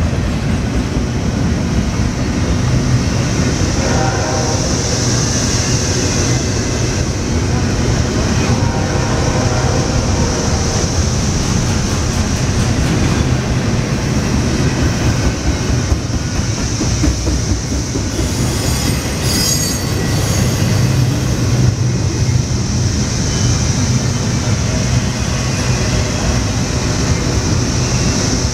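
Double-stack intermodal freight train rolling steadily past at close range: the continuous rumble and clatter of its well cars' wheels on the rails. A brief high-pitched wheel squeal comes about two-thirds of the way through.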